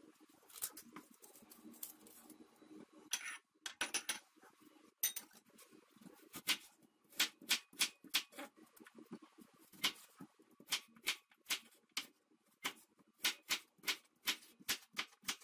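Kitchen knife cutting raw peeled quince into cubes on a wooden cutting board: the blade knocks sharply on the board each time it goes through. The knocks are sparse and quieter at first, then come a few a second from about five seconds in.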